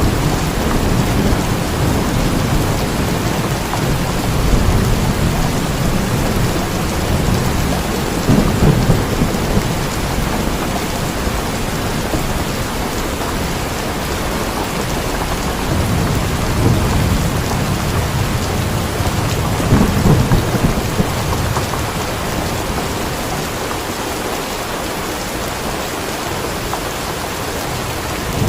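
Steady heavy rain with low thunder rolling in several times, swelling and fading.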